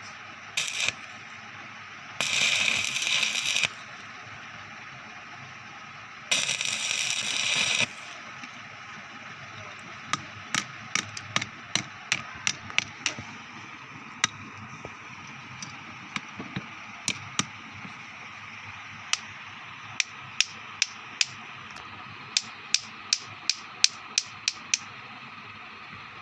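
Electric arc welder running short welds: three bursts of hiss, the longest about a second and a half, in the first eight seconds. After that comes a long, irregular run of sharp clicks.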